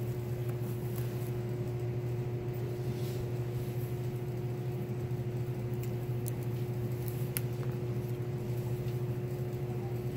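Steady low machine hum with a fainter higher tone over it, holding level throughout, and a faint tick about seven seconds in.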